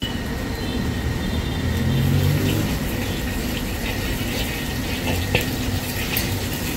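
Hot oil sizzling in a wok as a long metal ladle swirls it, with the ladle scraping the pan in short strokes and one sharp clink a little past five seconds. A steady low rumble runs underneath.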